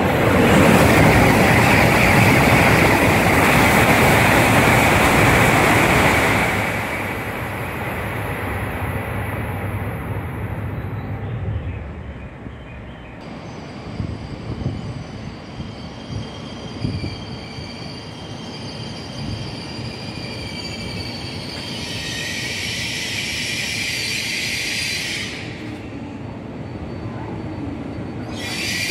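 A Shinkansen passes through the station at high speed: a loud rush of wind and rolling noise that fades after about six seconds. Then a quieter E5 series Shinkansen rolls in to stop at the platform, with a thin, high, steady whine over a low rumble and a brief hiss near the end.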